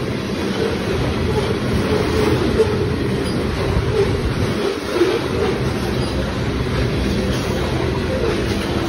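Freight train of ethanol tank cars rolling past: a steady rumble of steel wheels on the rails.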